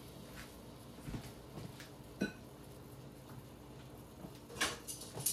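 Quiet kitchen room tone with a faint steady hum, broken by a few light clicks and knocks; the sharpest click comes near the end.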